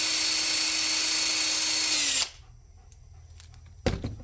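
DeWalt drill running at a steady speed, polishing the surface of a carburetor bowl. About two seconds in it is released and its pitch falls as it spins down. A short knock follows near the end.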